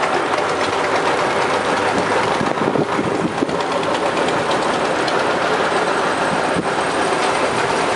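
Farm tractor engines running as tractors drive past.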